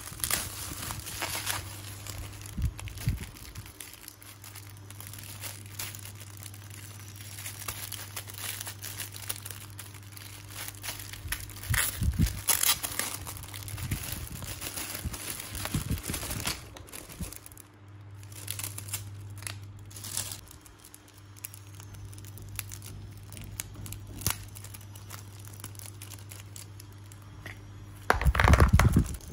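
Clear plastic bags crinkling and rustling as they are handled, in irregular bursts over a steady low hum. A louder bump near the end.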